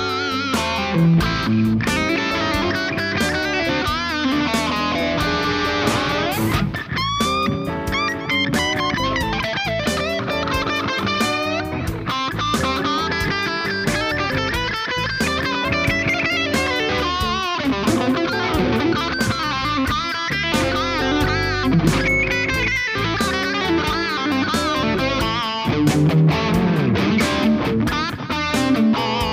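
Electric guitar (an Ibanez Jem through a Kemper profile of a Marshall Plexi) playing bluesy lead lines with string bends, over a backing track with drums.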